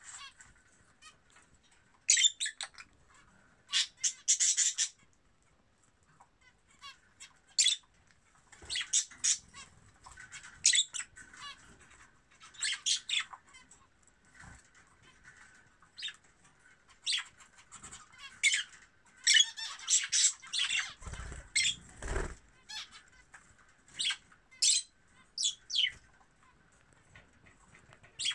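Small parrots in a nest box with their downy chicks chirping and squeaking in short, high-pitched bursts that come in clusters every second or two. About three quarters of the way in there is a brief low thump, like movement in the bedding.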